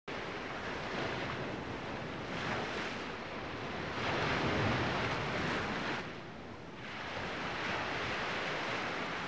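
Ocean surf breaking and washing up a sandy beach, a steady rush that swells and ebbs; the biggest surge comes about halfway through, then drops away briefly before building again.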